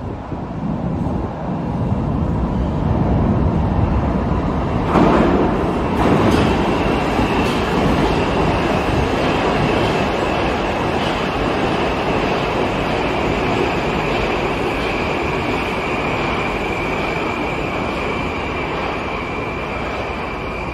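Moskva-2020 (81-775/776/777) metro train arriving at the platform. The rumble of wheels on rail builds, with two loud clacks about five and six seconds in. Then a steady high electric whine sets in and sinks slightly in pitch as the cars roll past.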